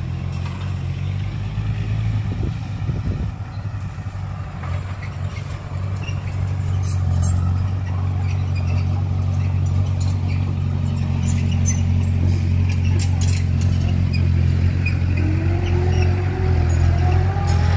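Heavy diesel engine of a loaded Hyundai dump truck running with a steady low drone, growing louder from about six seconds in.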